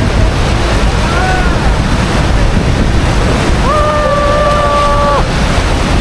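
Loud steady rush of water, with wind buffeting the microphone. About two thirds of the way in, a steady held tone sounds over it for about a second and a half.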